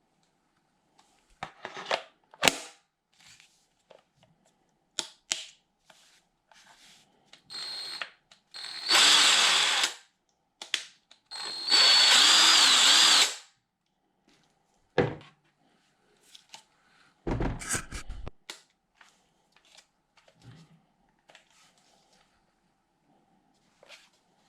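Teccpo TDIW01P 18 V cordless impact driver run in two bursts of about a second and a half each, its motor whine starting just before the hammering. Scattered clicks and clunks of handling come before and after, with a heavier clunk about two-thirds of the way through.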